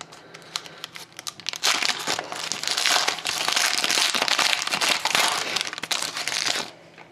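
Foil wrapper of a Panini Titanium hockey card pack crinkling and tearing as it is pulled open by hand: a few light rustles, then steady dense crinkling from about a second and a half in, stopping just before the end.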